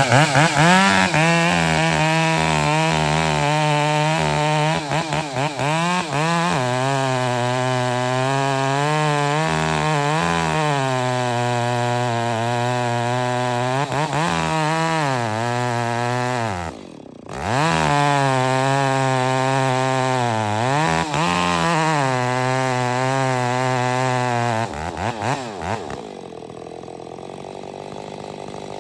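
Gas chainsaw running at high revs while cutting wood, its pitch sagging and recovering again and again as the chain loads up in the cut. It drops off briefly about two-thirds of the way through, then runs quieter near the end.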